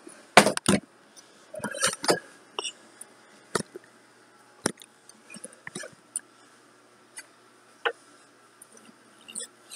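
Handling noise from a laptop being picked up, carried and set down: a string of sharp knocks, bumps and clicks, the loudest two close together just under a second in, then a cluster about two seconds in and single clicks every second or so after.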